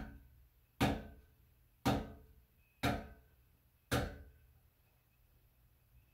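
Five sharp knocks about a second apart, each with a short ringing tail.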